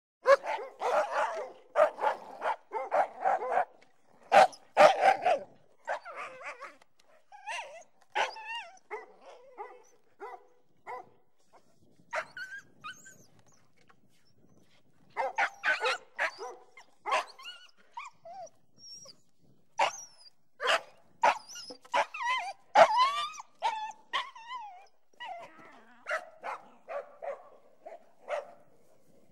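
Dog barking in runs of short sharp barks, densest and loudest in the first few seconds, with a pause of about two seconds midway. High whines and yips come between the barks, with some gliding up and down in pitch after the pause.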